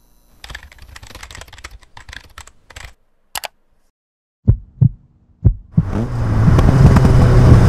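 Faint crackling, clicking static, then a short burst and silence, then three deep thumps like heartbeats. From about six seconds in, a car engine starts running and grows loud.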